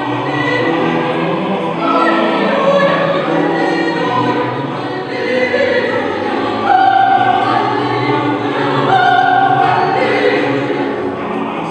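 Classical choral music: a choir singing long, held notes that step from one pitch to the next.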